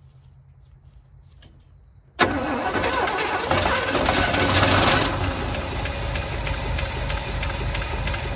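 1985 Chevy C10's carbureted engine catches suddenly about two seconds in, runs louder for a couple of seconds, then settles into a rough idle that sounds like a miss, possibly with some upper valve train noise.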